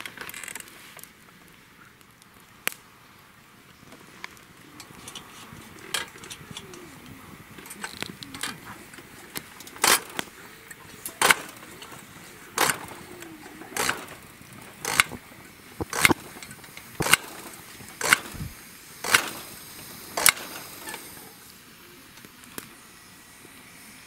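Vapalux M320 kerosene pressure lantern being pumped by hand: about ten sharp clicking strokes, roughly one a second, starting about ten seconds in, building pressure in the fuel tank.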